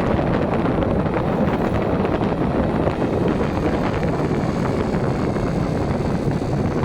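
Wind buffeting the microphone during a bicycle ride: a steady rumbling rush.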